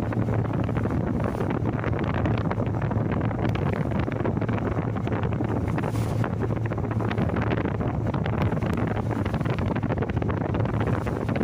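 Wind buffeting the microphone over a steady wash of sea and waves, with a constant low hum underneath.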